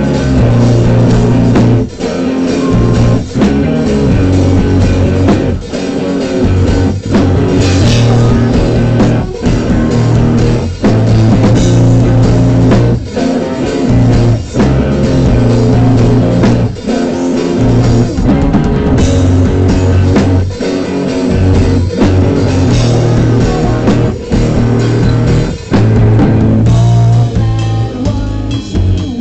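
Live rock band playing loud: distorted electric guitar, bass guitar and drum kit, with a male singer's vocals over them.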